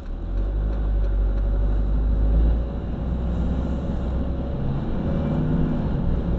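Van engine and road rumble heard inside the cab as it accelerates. A deep rumble dominates the first couple of seconds, then the engine note comes through, rising slightly.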